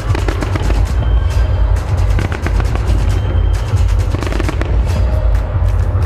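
Fireworks going off in rapid volleys: many sharp cracks in quick succession over deep booms, with music playing.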